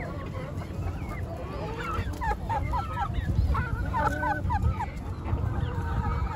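Backyard chickens clucking, with quick runs of short repeated calls in the middle and a few longer drawn-out calls near the end, over a low rumble.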